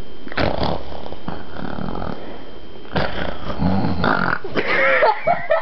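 A person imitating snoring: two long snore sounds, the first lasting about two and a half seconds and the second starting about three seconds in, followed by a short vocal sound near the end.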